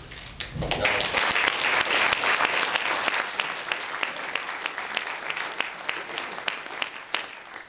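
Audience applauding, building up about a second in and thinning out near the end, with single hand claps standing out in the last seconds.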